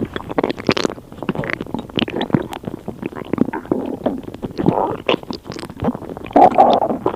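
Stomach gurgling and rumbling: a continuous run of irregular wet pops, squelches and bubbling. It swells into its loudest gurgle near the end.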